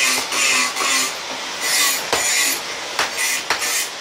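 Hand hammer striking a red-hot steel blade on an anvil in irregular blows, with bursts of hiss in between.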